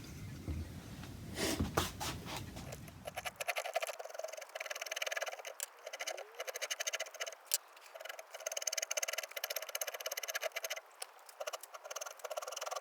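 Hand carving tools cutting into cherry wood: a run of short, irregular scraping cuts and clicks, sounding thin from a few seconds in.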